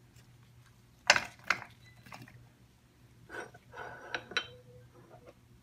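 Shallots and garlic dropped into an electric food chopper's bowl, knocking and clinking against it: a sharp knock about a second in, a second knock just after, then a run of lighter clinks with a short ringing tone a little past the middle.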